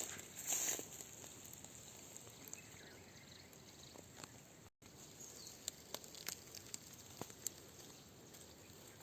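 Faint outdoor background hiss with scattered light clicks and rustles, and a brief louder rustle about half a second in. The sound cuts out for a moment near the middle.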